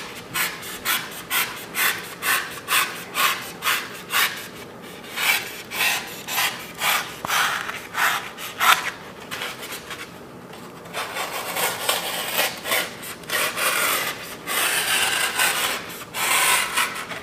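Fillet knife shaving a block of rigid carving foam into a fish body, in quick rasping strokes about two a second. A brief pause comes about ten seconds in, followed by denser, steadier scraping.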